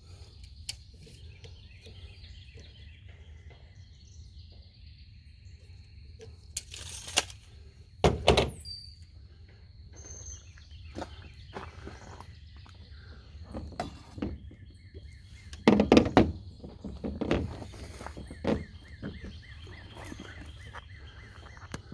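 Irregular knocks and clunks of PVC pipe and fittings being handled, the loudest about 8 and 16 seconds in, over faint birdsong.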